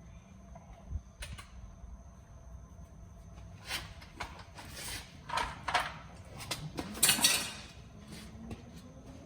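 Metal clanks and rattles of tools and parts being handled, a scattered series of knocks with a louder scraping clatter about seven seconds in, over a steady low hum.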